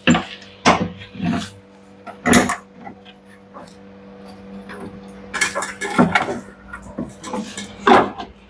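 Knocks and clatter of the washing machine's dryer duct and casing parts as they are pushed and fitted into place, in a handful of sharp hits with a cluster a little past the middle, over a steady low hum.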